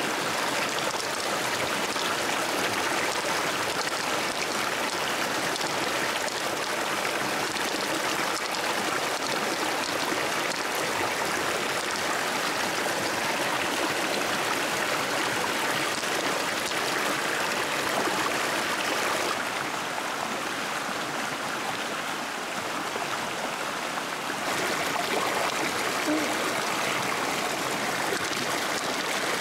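Steady rush of a flowing stream, a little quieter for a few seconds past the middle.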